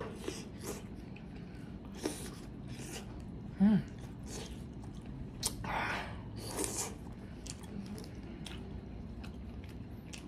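Close-miked mouth sounds of eating green-lipped mussels in Cajun butter sauce: wet chewing, smacking and sucking the meat off the shell. There is a short hum about three and a half seconds in and a louder stretch of slurping around six seconds in.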